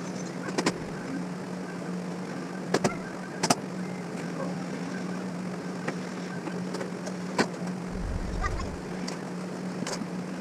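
Sharp clicks and knocks of tools and parts being handled, about five in all, over a steady low hum. A brief low rumble comes about eight seconds in.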